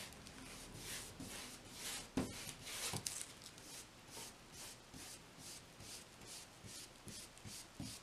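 Flat paintbrush with wet acrylic paint scrubbing back and forth over a textured canvas board: faint, soft swishes, about three strokes a second.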